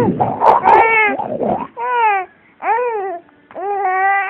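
Young gull crying: a harsh, rough squawk, then a run of pitched, wailing calls that each rise and fall, the last one drawn out. It is a call the owner has never heard from the bird before.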